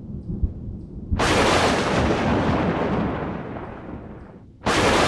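Thunder sound effect: a low rumble, then a sudden sharp thunderclap about a second in that fades slowly into rumbling, and a second clap near the end.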